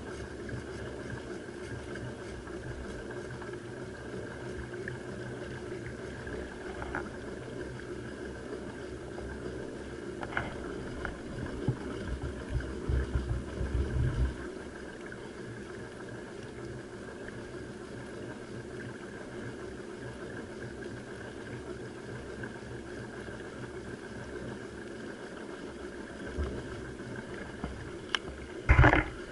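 Human-powered pedal boat's bicycle chain and propeller drive whirring steadily as it is pedalled, with water washing along the hull. Low rumbling swells up for a few seconds midway, and a loud knock comes near the end.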